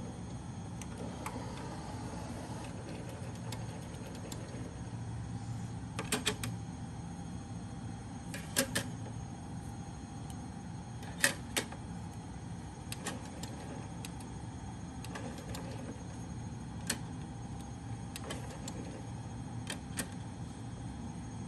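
Denon DCM-500AE five-disc carousel CD changer opening its tray, then a scattering of sharp clicks and clacks from the tray and carousel mechanism and the discs being handled, the loudest about eleven seconds in, over a steady low hum.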